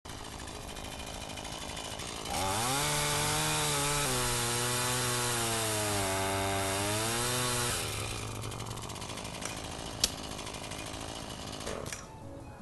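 Chainsaw engine running, revved up hard for about five seconds from about two seconds in, then dropping back to a lower running sound. A single sharp click about ten seconds in.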